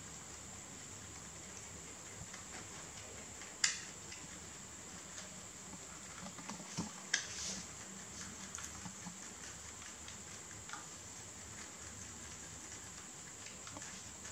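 Two domestic rabbits nibbling and chewing fresh sweet basil leaves: faint, quick small clicks of chewing and leaf rustle over a steady hiss, with two sharper clicks, one about 4 seconds in and one about 7 seconds in.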